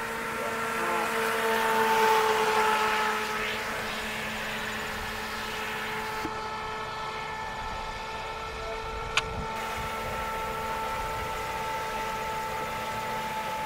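Radio-controlled speedboat running across a pond, its motor giving a steady whine that swells around two seconds in. A single sharp click about nine seconds in.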